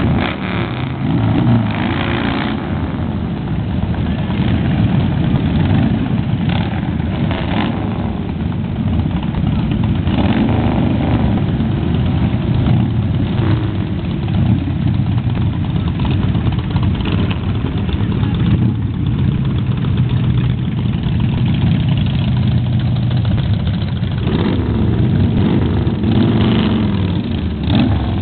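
Harley-Davidson motorcycles' V-twin engines running as a group of bikes rides slowly past, the pitch rising and falling near the end as riders work the throttle.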